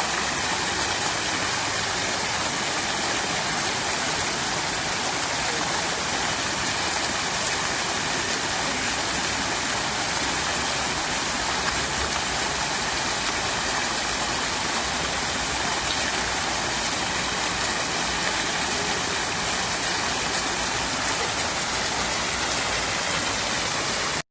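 Fountain water splashing and trickling in a steady, even rush.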